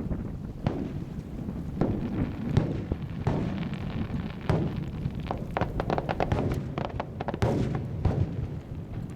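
Aerial fireworks going off: a string of booms and bangs, with a dense run of rapid crackling reports from about five to seven and a half seconds in.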